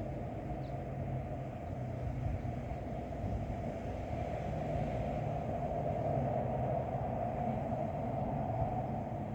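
Wind blowing, a steady rumbling rush that swells a little in the middle.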